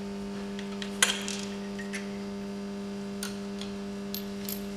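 A few light metallic clinks as cylinder-head nuts and washers are lifted off the studs by hand, the sharpest about a second in. Under them runs a steady low tone.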